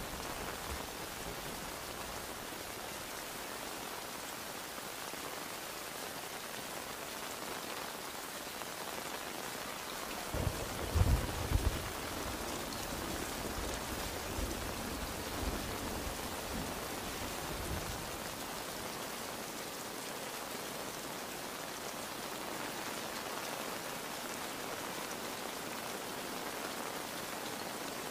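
Steady heavy rain pouring down. About ten seconds in a short burst of deep rumbling with several loud peaks breaks through it, and a few softer low rumbles follow.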